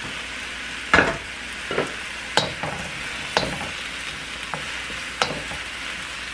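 Vegetables sizzling in a hot wok while a wooden spoon stirs them, knocking and scraping against the pan about once a second. The loudest knock comes about a second in.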